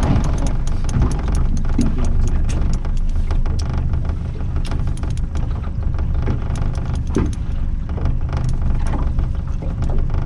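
A small fishing boat's engine running at idle, a steady low rumble, with scattered clicks and rattles from the boat and tackle.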